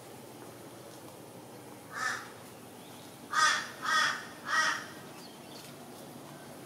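A crow cawing: one caw, then three harsh caws in quick succession about half a second apart.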